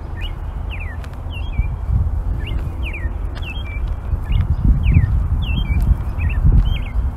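A bird calling over and over in short, curved chirps, about two a second. Beneath it runs a heavy, uneven low rumble on the microphone.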